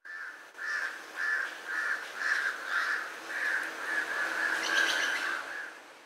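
Legge's hawk-eagle calling: a steady series of short calls at one pitch, two to three a second, running together near the end.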